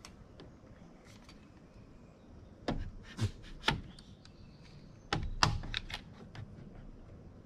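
One-handed quick-grip bar clamp being set and squeezed on wooden framing boards, giving sharp ratcheting clicks and knocks against the wood. There are three clicks about three seconds in and a quick run of clicks around five seconds in.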